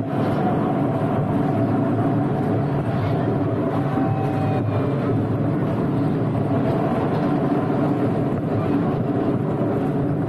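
Small open-carriage tourist train running steadily, heard from aboard: a continuous drone of its engine and running gear.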